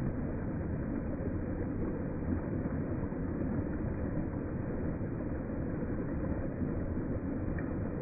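Water of a small waterfall rushing and splashing over rocks into a pool: a steady, deep rush with no breaks.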